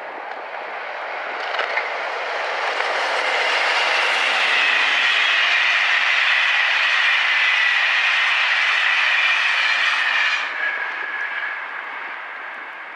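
A locomotive-hauled passenger train of SNCF Corail coaches passing at speed. The rush of the train builds as it approaches and holds steady with a high whine over it while the coaches go by. It drops off sharply about ten seconds in as the end of the train passes, then fades away.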